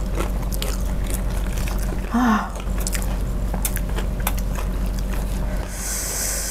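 Close-miked chewing and biting of crispy fried chicken in balado chili sauce: a run of crunchy, wet clicks. There is a short hum about two seconds in and a burst of hiss near the end.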